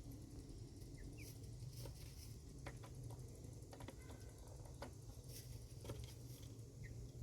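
Young hens moving about in a coop: faint scattered taps and scratches, with a few short soft chirps about a second in and again near the end.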